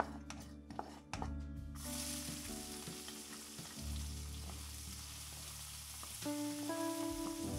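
Cumin seeds sizzling in hot oil, with a wooden spatula clicking against the pan as they are stirred. About two seconds in, a steady, fuller sizzle takes over as chopped red onion fries in the oil and is stirred.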